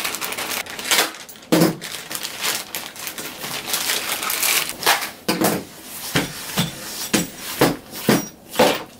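Plastic mailing bag crinkling and rustling in irregular bursts as it is handled and pulled open.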